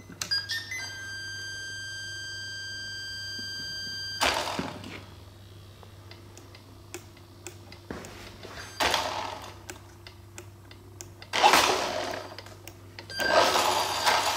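A steady electronic beep from the radio-controlled car set being switched on, one long tone lasting about three and a half seconds. After it come several short rushes of noise, the loudest about eleven seconds in.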